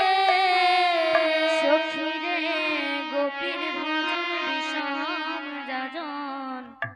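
Bengali devotional kirtan music between sung lines: a melody instrument holds and bends a sustained line with vibrato, with a few light taps. The sound cuts out abruptly near the end.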